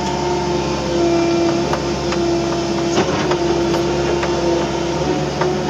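Komatsu hydraulic excavator heard from inside its cab: the engine and hydraulics run with a steady whine that shifts a little in pitch as the boom and bucket work, with scattered clicks and knocks throughout.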